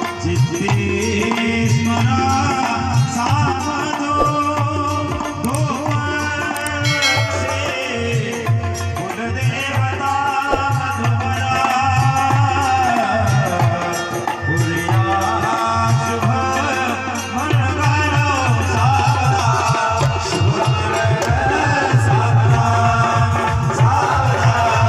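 Live Indian devotional kirtan music: tabla and dholak drumming a steady, busy rhythm under a wavering melody line.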